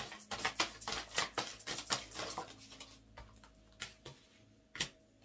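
Oracle cards being shuffled and handled: a quick run of light clicks and flicks for about two and a half seconds, then a few single clicks.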